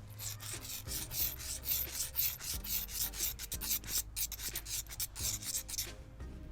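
Small metal nail rubbed back and forth on a concrete floor, a fast run of gritty scraping strokes, several a second, that stops near the end: the nail's sharp tip being ground blunt, the concrete acting like sandpaper.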